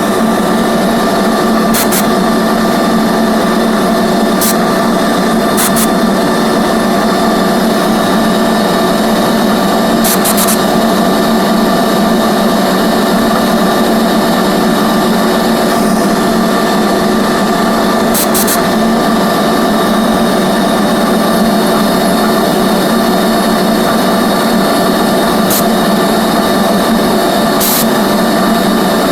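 CNC router spindle running at high speed and cutting MDF with a profile cutter: a loud, steady machine noise with a constant whine. A few brief sharp ticks come through at irregular moments.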